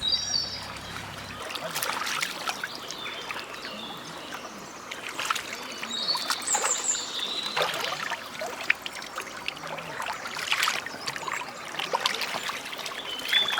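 Water trickling and splashing in a small stream, an uneven rushing hiss, with a few short high chirps now and then.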